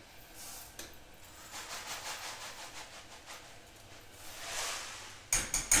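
Dry instant rice pouring from a cardboard box into a metal measuring cup with a grainy rustling hiss, then tipped into a saucepan of boiling chicken broth. Near the end come a few sharp clicks, the metal cup tapping against the pot.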